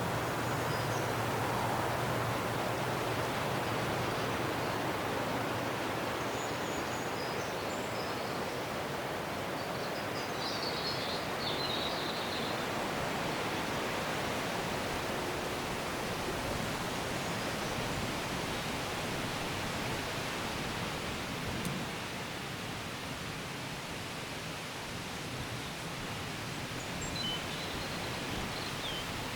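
Steady wind rustling through trees and grass, an even hiss with no break. A few faint high chirps sound about ten seconds in and again near the end.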